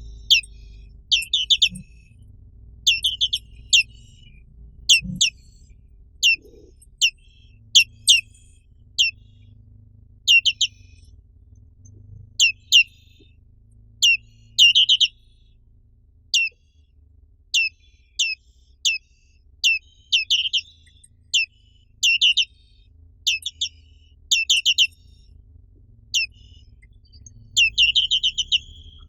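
Black-capped white-eye (Zosterops atricapilla) calling: short, high-pitched, downward-sweeping chirps, some single and some in quick runs of two to five, repeated every second or so.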